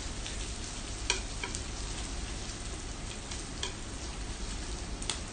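Pork belly slices and hotdogs sizzling steadily on an electric grill plate, with a few light clicks of chopsticks and tongs against the plate as the meat is turned.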